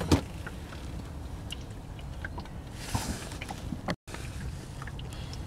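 Water lapping against the hull of a drifting boat: a low, even wash with scattered small clicks and knocks.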